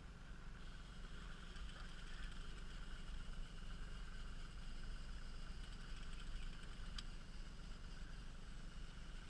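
40 hp outboard motor running steadily at trolling speed, with a constant low drone. A single short click comes about seven seconds in.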